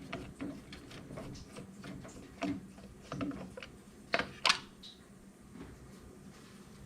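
Scattered light clicks and taps of hands working on the circulating pump's wiring connections, with a couple of sharper clicks about four seconds in.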